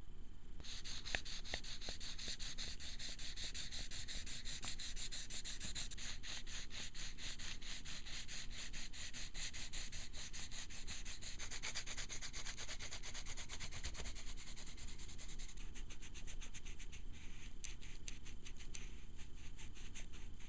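Graphite pencil scratching rapidly back and forth across paper, laying down dense hatching; it starts about half a second in. About three-quarters of the way through it gives way to sparser, separate rubbing strokes of an eraser pen working through the graphite.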